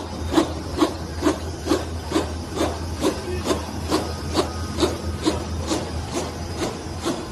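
CW-800SBD courier-bag making machine running: a regular mechanical clack a little more than twice a second, over a steady low hum.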